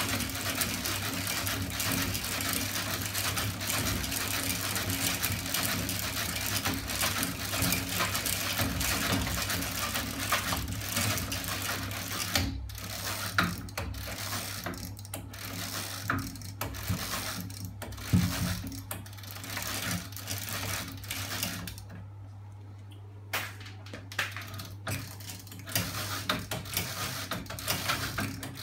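Homemade chain-and-sprocket engine rig with spring-loaded arms and a flywheel running, a fast rattling clatter of chain and linkage that thins about halfway through to separate irregular clacks. A steady low hum runs underneath.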